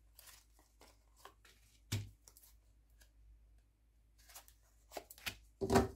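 Oracle cards being handled and laid down one at a time on a cloth-covered table: soft slides and light taps, with a sharper tap about two seconds in and a louder short burst of sound near the end.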